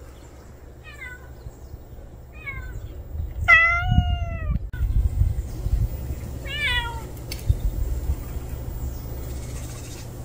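Stray cat meowing: two faint short meows, then a long loud meow a few seconds in and a shorter one a few seconds after it.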